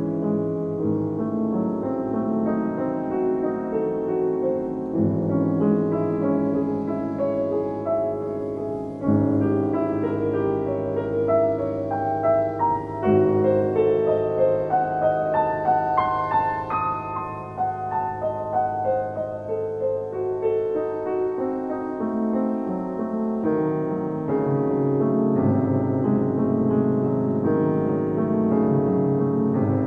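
Solo classical piano played on a Steinway & Sons grand, with full chords over deep bass notes that are struck afresh every few seconds.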